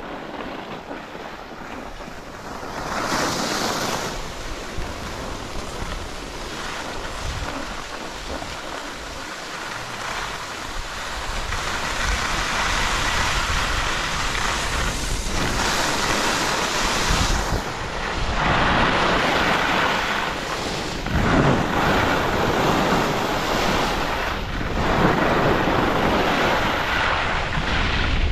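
Wind rushing over the microphone of a skier's action camera during a fast descent, mixed with skis hissing and scraping on groomed snow. The rush grows louder about a third of the way in and surges up and down, as speed builds and turns are made.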